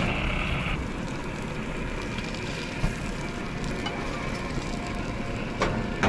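Whole herb-stuffed trout sizzling on a grill as a steady hiss, with a couple of short knocks, one about three seconds in and one near the end.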